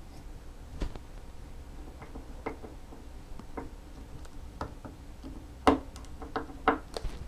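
Small parts and tools clicking and tapping on a workbench during hand reassembly of a motorcycle brake master cylinder. The clicks are irregular, and the two loudest come a little under 6 seconds in and just under 7 seconds in.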